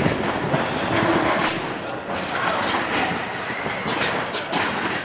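Matterhorn Bobsleds roller coaster car running along its tubular steel track, heard from inside the sled: a steady rumble from the wheels, with sharp rattles and clacks, several of them together near the end.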